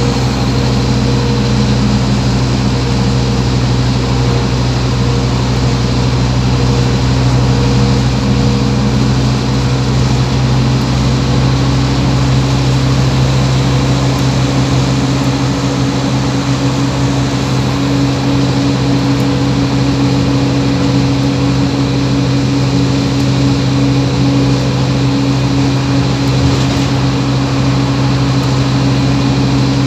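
Scania OmniCity bus's diesel engine running with a steady low drone and hum, heard from inside the passenger cabin.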